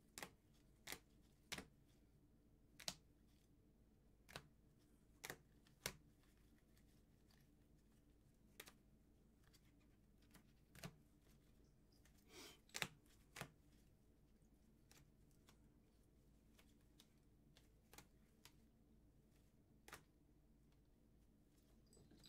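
Faint, sharp clicks and taps of trading cards and plastic card holders being handled and set down, several in the first few seconds and then scattered, with a short rustle about twelve seconds in.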